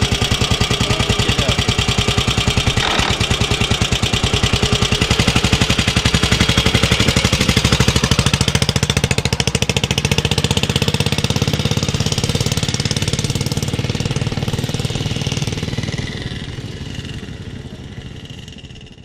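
Vintage motorcycle engine running with an even, rapid beat, a knock about three seconds in, then pulling away and fading as the bike rides off into the distance.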